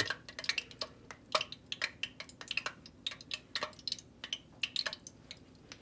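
Irregular light clicks and taps in a kitchen, several a second.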